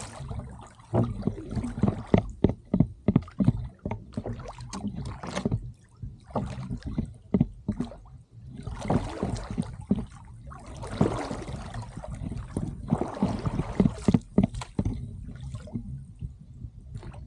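Duck punt being rowed with wooden oars: repeated knocks from the oars working in their oarlocks, thickest in the first few seconds, and water swishing off the blades with the strokes.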